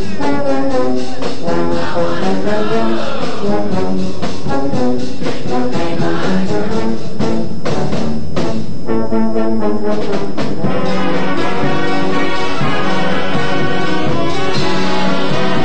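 High school marching band playing a brass-led arrangement, recorded in the school's band room. A run of sharp percussion hits comes through about halfway in.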